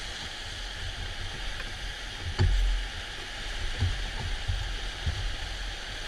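Whitewater rapids rushing steadily around a raft, with a few low thumps, the loudest about two and a half seconds in.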